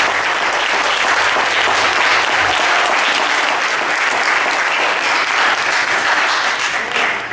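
Church congregation applauding steadily, dying away at the very end.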